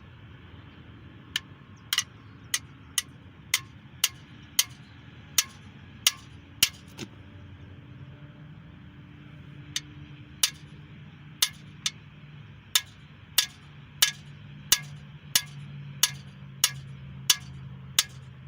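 Hammer tapping lightly on a steel camshaft bearing removal tool, driving the rearmost cam bearing out of a small block Chevy 350 engine block. Sharp, ringing metallic taps come about one and a half to two a second in two runs, with a short pause in between.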